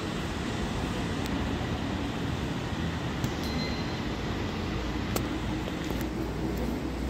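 Steady metro station concourse ambience: a low rumble and hiss, with a few sharp clicks and a short high beep about three and a half seconds in.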